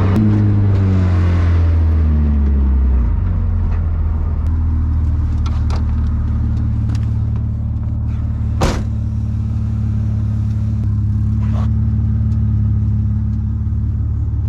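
BMW E36 engine coming off the revs and settling to a steady low idle, loud because half of its exhaust is missing. A single sharp click sounds about nine seconds in.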